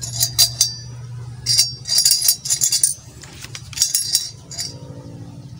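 Steel stove parts clinking and clanking against each other as the small welded chamber and its hinged legs are handled: a string of sharp metallic knocks, each with a short ring, over a steady low hum.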